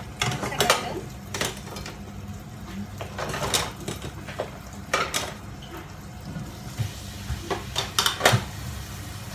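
Kitchen clatter: a spatula knocking and scraping in a frying pan, then scattered clinks and knocks of dishes and utensils, over a steady low hum.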